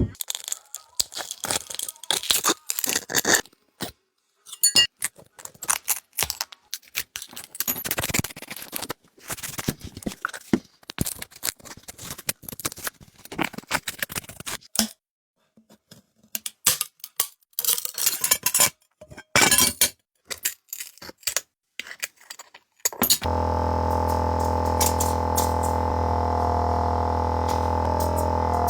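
Small tools clicking, tapping and scraping on an iPhone's parts during a repair, in quick runs with short silent pauses. About 23 seconds in, a steady droning hum with several held tones begins and continues.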